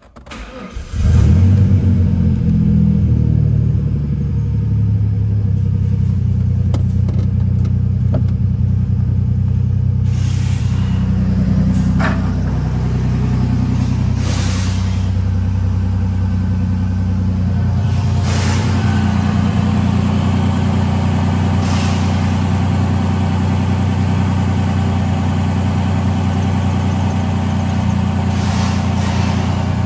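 2000 Ford Ranger's 3.0-litre Vulcan V6 starting about a second in, running slightly higher for the first few seconds, then settling into a steady idle. A few brief knocks and clicks sound over the idle.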